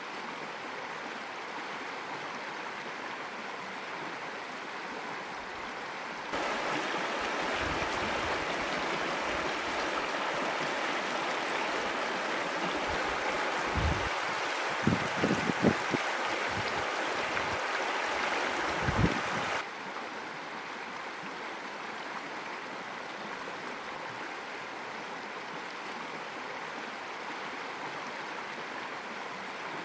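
Shallow river running over stones, a steady rushing hiss of water that is louder and fuller for a stretch in the middle, with a few low thumps near the end of that stretch; a quieter steady hiss before and after.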